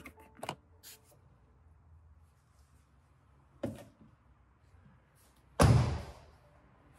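A few light clicks and knocks, then a car door shut with one solid thud a little over halfway through.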